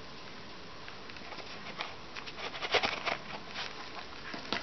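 Hands handling a cardboard box and its inserts: a run of irregular small clicks, taps and scrapes, loudest about three seconds in, with one sharp click near the end.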